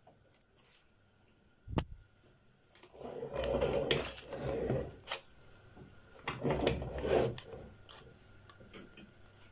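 A metal baking pan being handled on a gas stove: one sharp click about two seconds in, then two longer bursts of scraping and rustling, with a few light ticks after.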